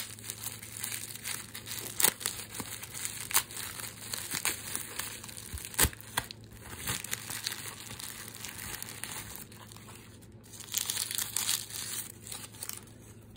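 Plastic bubble wrap crinkling and rustling as it is handled and unwrapped, with scattered sharp crackles. A louder, denser burst of crinkling comes near the end, as brown wrapping paper is crumpled.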